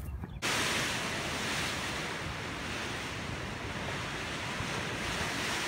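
A steady, even rushing noise that cuts in abruptly about half a second in.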